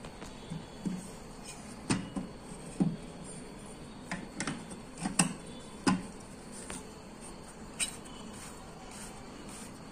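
Irregular light knocks and clicks as a photocopier's green OPC drum and its metal drum-unit frame are handled and the drum is fitted into place, over a steady low hiss.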